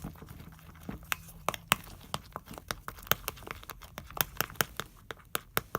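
A utensil stirring a wet slime mixture of glue, water, foaming hand soap and paint in a bowl, with quick irregular clicks and taps against the bowl, several a second.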